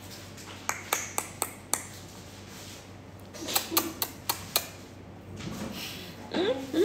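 Sharp lip-smacking kiss sounds made to call a dog: a quick run of about five around a second in and another run of about five at three and a half to four and a half seconds. A short voiced sound near the end.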